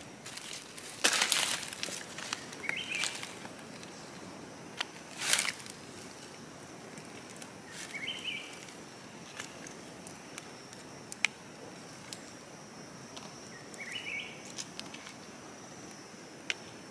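Dry leaf litter rustling and crackling as it is handled and stepped on, loudest near the start and about five seconds in. A bird gives a short chirp three times, several seconds apart, over a steady high insect whine.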